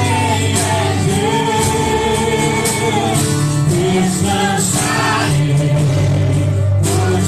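Contemporary Christian worship music: voices singing long held notes over a band with a sustained bass and regular percussion hits.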